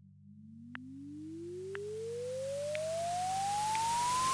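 Quiz countdown sound effect: a single electronic tone climbing steadily in pitch over a low steady drone, with a swelling hiss and faint ticks about once a second, building tension before the answer is revealed.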